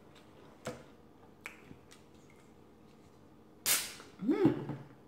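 Aluminium soda can of carbonated soft drink being opened by its pull tab: a sharp crack and hiss of escaping gas nearly four seconds in, then a second, louder burst of fizzing with a brief squeaky tone. A few light clicks of the can being handled come before.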